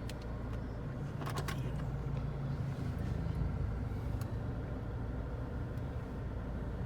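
Car engine idling, a steady low rumble heard from inside the cabin, with a short cluster of clicks about a second in.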